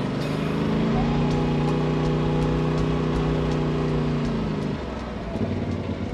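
Polaris RZR side-by-side's engine running under way, with a steady engine note from about a second in that falls away near the end.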